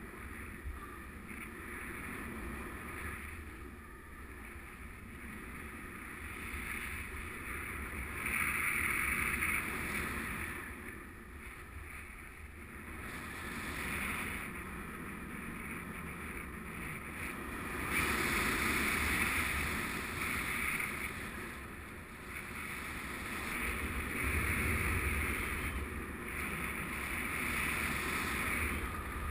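Rushing airflow on the microphone of a camera mounted on a paraglider's risers in flight, swelling and easing every few seconds.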